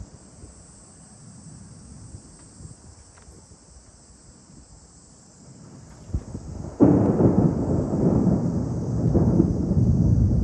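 Thunder: a short crack about six seconds in, then a loud rumble that breaks out suddenly and rolls on.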